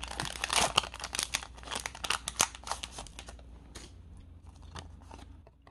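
A Pokémon trading-card booster pack's foil wrapper being torn open and crinkled in the hands: a dense run of crackles for about three seconds, then a few lighter ticks as the cards are slid out.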